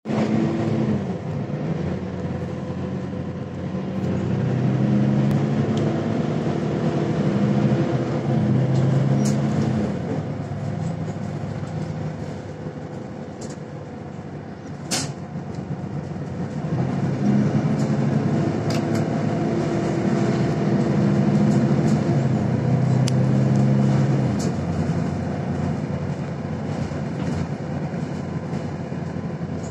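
Mercedes-Benz Citaro C1 Facelift city bus heard from inside the cabin: engine and drivetrain running, louder in two long stretches with a quieter spell between. Scattered interior rattles, and a sharp click about halfway.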